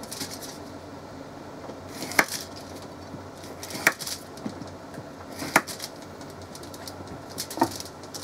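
Hands working at a raw trout on a sheet of aluminum foil, setting slices of butter on it: three sharp taps about every second and a half, a weaker one near the end, over a steady low hiss.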